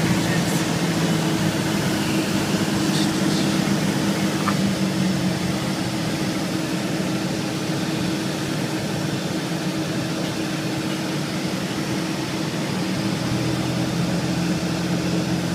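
Cabin drone of a Cessna 172S in flight, heard from inside the cockpit: its four-cylinder Lycoming engine and propeller running steadily under a hiss of air noise. The drone's pitch shifts slightly about four seconds in and again near the end.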